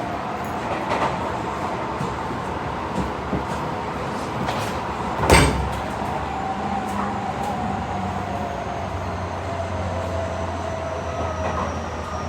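Tobu 50070 series electric train running, with steady wheel-on-rail rolling noise and a few clicks. About five seconds in comes one sharp, loud bang. After that, the traction motor whine falls slowly in pitch as the train slows.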